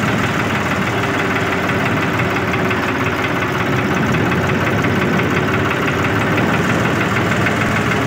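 Diesel tractor engine running steadily at low speed under load while pulling a tined cultivator between crop rows, heard from the driver's seat.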